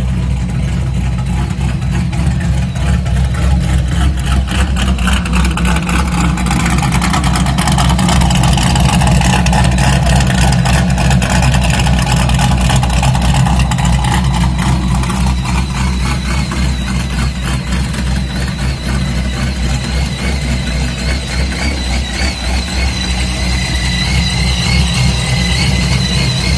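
Dodge Ram SRT-10's supercharged 8.3-litre V10 idling steadily and loud through a newly installed exhaust. A high, wavering whine joins over the engine a little past halfway.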